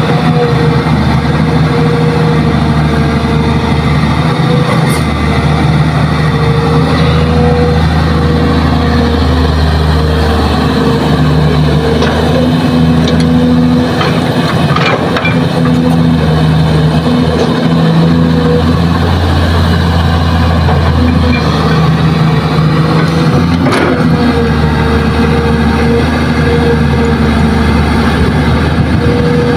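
Kobelco SK200 hydraulic excavator's diesel engine running steadily under load as it digs and swings, its drone swelling and easing every few seconds with the hydraulic work. A few sharp knocks from the bucket and the soil come through over it.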